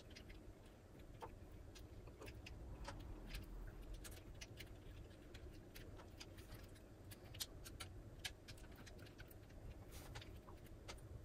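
Faint, irregular light clicks and ticks of a Dean and Bean circular sock knitting machine's needles as fingers handle them around the cylinder, hooking the bonnet onto the needles.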